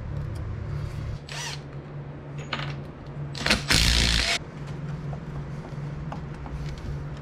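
Cordless Milwaukee drill run in one short burst of a little under a second, about three and a half seconds in, driving a fastener on a disassembled two-stroke jetski engine. A steady low hum and a few small knocks of parts being handled are heard around it.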